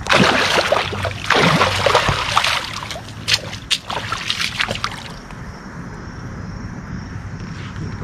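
Water splashing and sloshing against a boat, with a couple of sharp slaps about three and a half seconds in, over the steady low hum of a boat motor running. The splashing dies down about five seconds in, leaving the motor hum.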